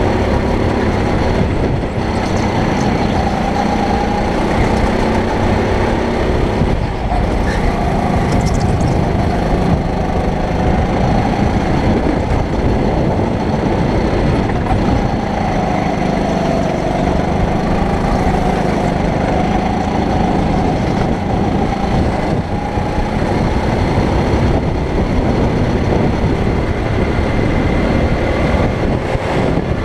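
Kart engine running hard at racing speed, its pitch rising and falling as the kart brakes for corners and accelerates out of them.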